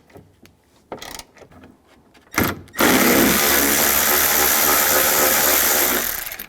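Cordless power driver spinning a T30 Torx socket to back out the door latch bolts: a brief blip, then one steady run of about three and a half seconds that winds down near the end.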